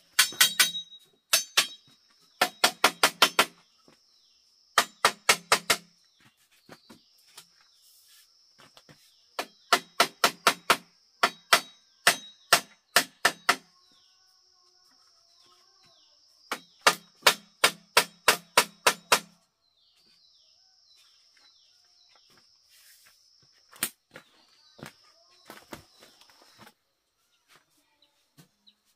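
Machete blows on bamboo in quick runs of about seven strikes a second, several bursts with pauses between, as the bamboo cupboard frame is worked.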